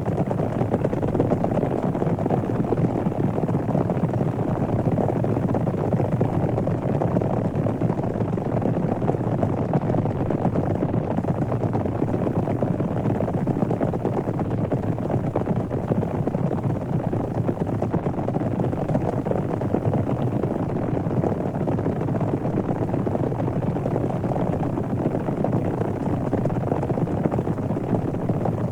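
Cattle stampede sound effect: a steady, dense rumble of a herd running, with no pauses.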